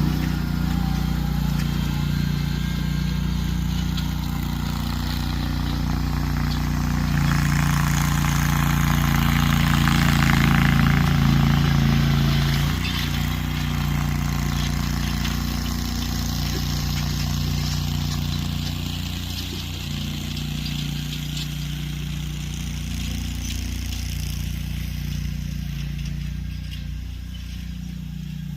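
Garden tractor engine running steadily under load while pulling a disc harrow through a field. It gets louder for a few seconds about a quarter of the way in, then settles lower.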